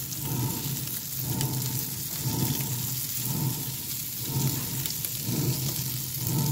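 Bacon and maple sausage sizzling in bacon grease on a flat griddle insert: a steady frying hiss, with a few light clicks of tongs. A low hum swells underneath about once a second.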